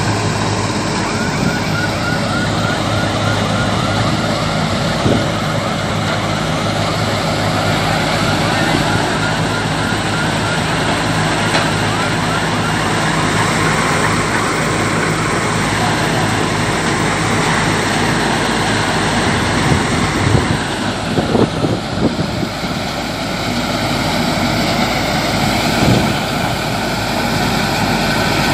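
Bhusa-making machine (a straw chopper for wheat straw) running steadily with a dense mechanical whir over an engine drone. A fast repeating squeak sounds for roughly the first ten seconds, and a few knocks come about twenty seconds in.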